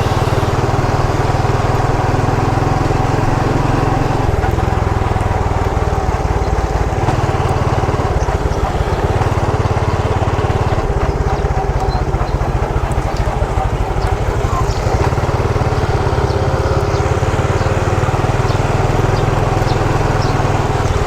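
Motorcycle engine running steadily while riding, with heavy low wind rumble on the microphone.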